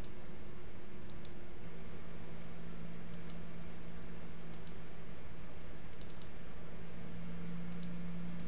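Computer mouse buttons clicking several times, mostly in quick pairs, over a steady low hum.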